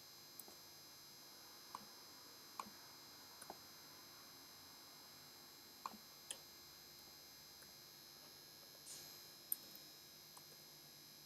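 Scattered clicks of computer keyboard keys being pressed, about ten in all and unevenly spaced, the loudest near the end, over a faint steady hiss.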